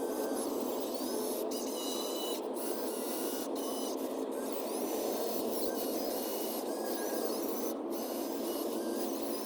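Sped-up timelapse audio of RC construction machines working: a steady noisy whir with short high whining tones, broken by brief dropouts about once a second where the sped-up clips are joined.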